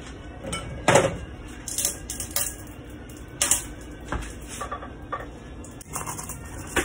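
Kitchen dishes and utensils being handled: a few separate light clinks and knocks, the loudest about a second in and another near three and a half seconds.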